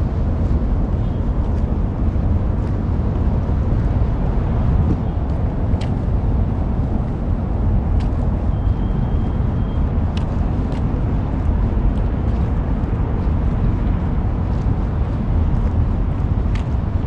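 Steady, loud low rumble of wind buffeting the microphone, with a few faint clicks over it.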